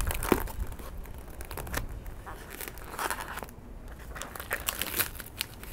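Plastic wrap being torn and peeled off a tray of ground beef, with irregular crinkling and crackling.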